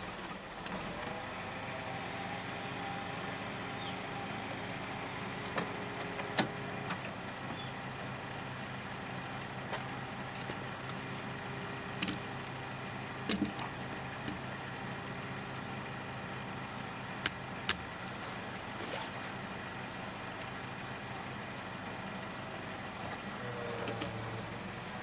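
Two-stroke chainsaw running steadily while bucking oak firewood logs, its engine note even throughout, with a few sharp clicks and a shift in pitch near the end.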